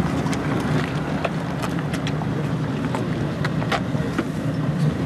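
Small motor launch's engine idling alongside the quay, a steady low rumble, with scattered light clicks and knocks.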